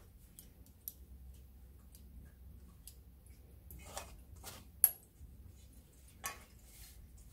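A metal whisk clinking and scraping against a stainless steel mixing bowl while hands work flour and water into dough: scattered light knocks, the loudest a sharp metallic clink about five seconds in.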